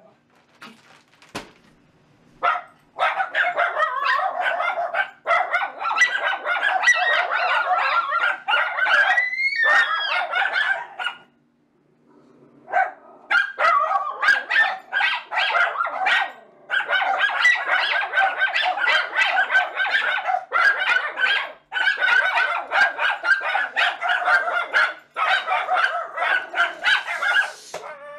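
Several miniature schnauzers barking loudly and without let-up, their barks overlapping, at someone arriving home at the front door. The barking starts a couple of seconds in, breaks off briefly about eleven seconds in, then resumes.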